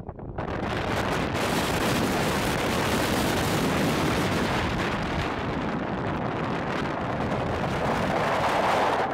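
Strong wind blowing steadily across the camera's microphone, coming in suddenly just after the start.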